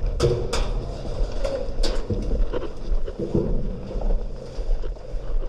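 Rumble of wind and handling noise on a body-worn microphone as an airsoft player moves, broken by several sharp clicks or knocks, two in the first second and more around two seconds in.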